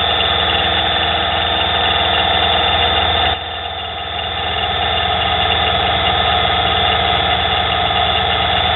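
Nano benchtop lathe running steadily with a motor whine, turning a steel gate hinge pin while the cutting tool is fed in by hand. The sound drops suddenly a little over three seconds in and builds back up over the next couple of seconds.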